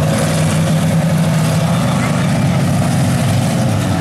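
Stock car engines racing past in a pack, a loud steady drone of several engine notes overlapping.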